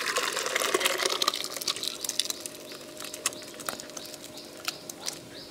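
Thick vegetable curry pouring and slopping from a pot into a steel vessel, loudest in the first second and a half, followed by a spoon scraping and clicking against the pot as the rest is pushed out. Small birds chirp in the background.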